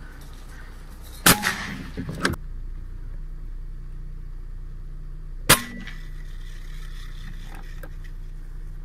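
Two sharp shots from a Hercules Bully .30 PCP air rifle, about four seconds apart, with a few smaller clicks shortly after the first. A low steady hum runs underneath.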